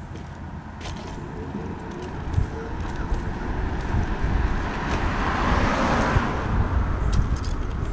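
A car approaching and passing, its tyre and road noise swelling to a peak about five to six seconds in.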